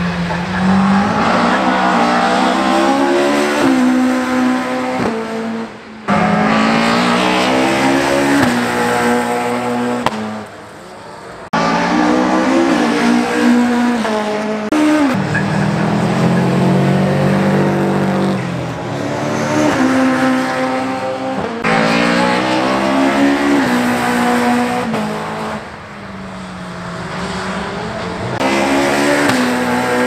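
Rally car engines at full throttle as several cars pass at speed one after another, the revs climbing and dropping through gear changes. The sound cuts abruptly between passes.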